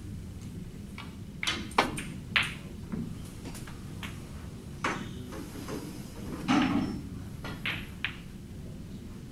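Snooker shot: the cue strikes the cue ball and the balls knock against each other, a pair of sharp clicks about two seconds in, followed by a few softer knocks later.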